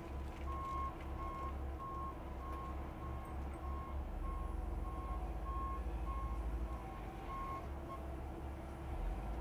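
Backup alarm on a Volvo wheel loader beeping steadily about twice a second as it reverses, stopping about eight seconds in, over the low steady rumble of its diesel engine.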